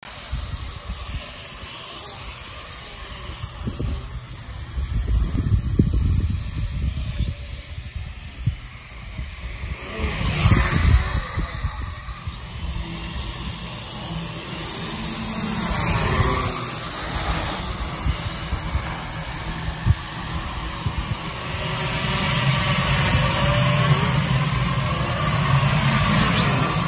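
Small quadcopter drone's propellers whining in flight, the pitch bending up and down as it speeds up and slows to manoeuvre, louder over the last few seconds.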